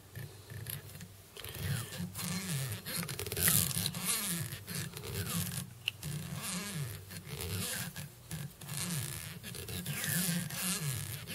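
Holographic mylar tinsel being wound around a fly hook shank under tension, drawn through the fingers so that it rubs and scrapes in repeated strokes about once a second.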